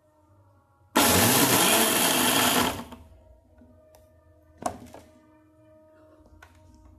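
Preethi Aries mixer grinder motor run in one short pulse of about two seconds, grinding cardamom in the mini spice jar, then switched off and spinning down. A single knock follows a couple of seconds later.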